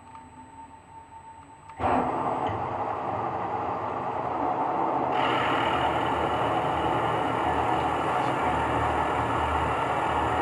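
CNC milling machine starting up suddenly about two seconds in and running steadily. A hiss joins about five seconds in as the cutter works the wooden block at the increased depth of cut, which makes it a little louder.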